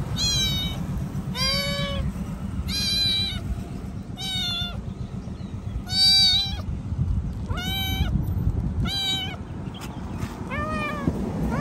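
Young calico kitten meowing over and over, about eight high-pitched cries at roughly one-and-a-half-second intervals: a hungry kitten crying for food.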